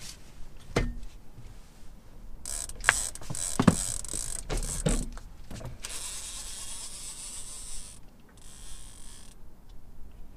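Several knocks and clicks as a fishing rod is handled, then a fishing reel whirring steadily for about two seconds past the middle, with a shorter spell near the end, as line is reeled in.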